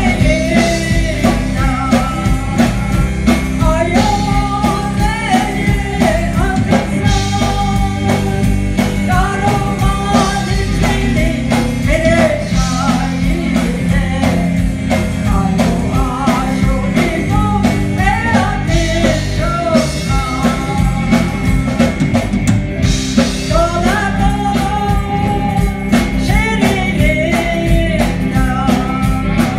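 A gospel song sung over an amplified accompaniment with a steady drum beat and bass, heard through a PA system.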